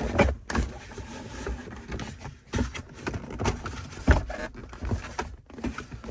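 Irregular knocks, clicks and scrapes of hands and a tool working a BMW E36 interior trim piece into place and fastening it, the loudest knock about four seconds in.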